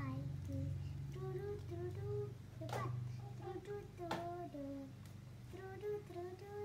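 A young child singing a short sing-song tune in held notes that step up and down, with two short sharp sounds about three and four seconds in.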